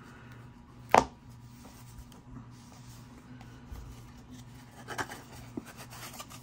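A hinged red plastic coin presentation case snapping shut with one sharp click about a second in, then light handling and a smaller click near five seconds as the case is slid into its cardboard box.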